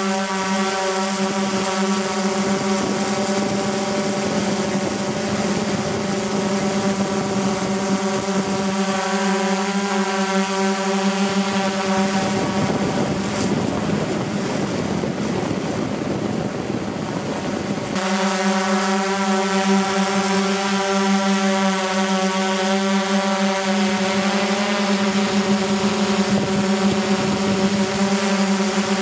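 Multirotor drone's motors and propellers humming steadily at a constant pitch, heard from the camera on board. For several seconds in the middle the hum turns rough and unsteady, then snaps back to a steady tone.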